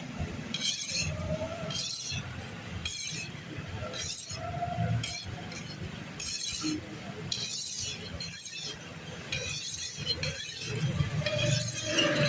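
Knife blade being sharpened: short, harsh metal scraping strokes repeat about once a second over a steady low hum.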